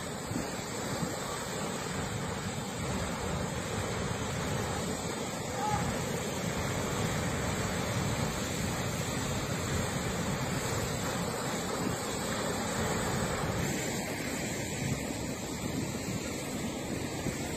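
Ocean surf rushing steadily, mixed with wind buffeting the microphone.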